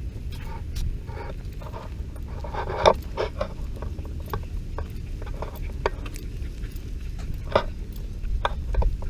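Handling noise from a camera strapped to a dog's harness as the dog moves: a steady low rumble with scattered clicks, and a brief cluster of louder short sounds about three seconds in.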